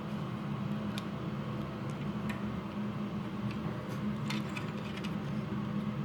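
Scattered light clicks and taps of plastic vacuum-cleaner switch and housing parts being handled and fitted, a few separate clicks over a steady low hum.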